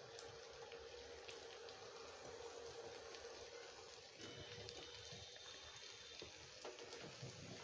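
Faint steady sizzling and crackling of beaten egg frying in oil in an aluminium kadhai over a gas burner, with a few light clicks.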